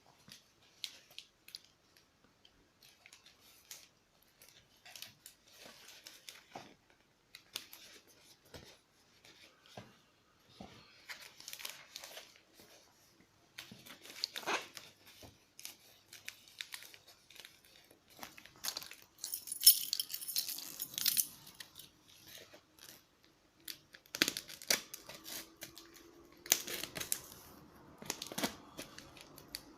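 Sunglasses packaging being handled and opened: intermittent rustling, crinkling and tearing of paper and plastic wrapping, with a loud crackling burst about twenty seconds in.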